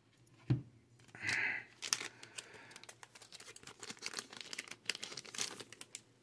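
Foil booster-pack wrapper crinkling and trading cards rustling as they are handled, a run of small crackles. A soft thump about half a second in and a short breath just after a second.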